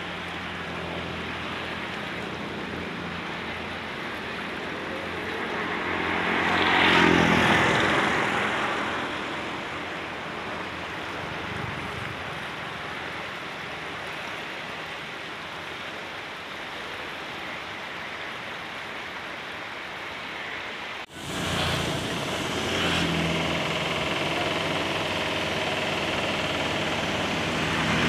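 Steady rush of a fast, swollen muddy river, with a motor vehicle passing close by, rising and fading, about seven seconds in. After a sudden cut about three quarters of the way through, a slightly louder steady outdoor noise.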